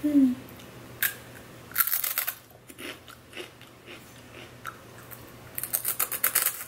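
Crunchy biting and chewing of a crispy dried okra snack, in two bouts of rapid crackly crunches: one about two seconds in and another near the end.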